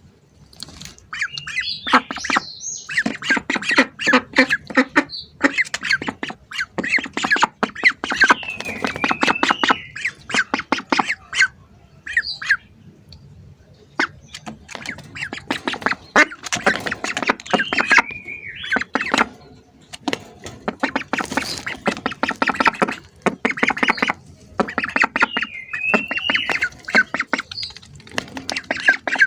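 Ducks calling in repeated loud bursts: harsh, rapidly pulsing squawking quacks mixed with higher calls that rise and fall in pitch, with short pauses between bursts. These are typical of hungry ducks clamouring for food.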